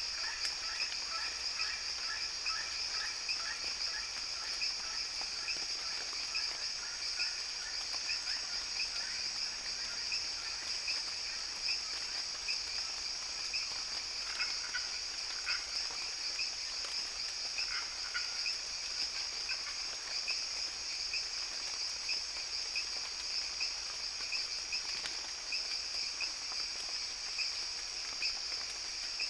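Tropical rainforest chorus of frogs and insects: a steady high insect drone, with frogs calling in rapid repeated pulses that are densest in the first few seconds and thin out later.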